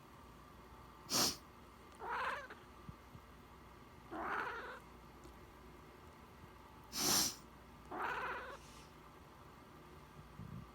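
A person sniffles sharply twice, and about a second after each sniffle a cat meows in answer, a short call of about half a second. A third meow comes between them.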